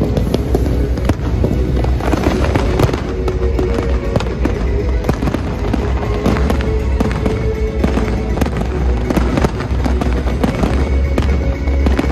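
Fireworks going off, many sharp cracks and bangs in quick succession, with music playing underneath.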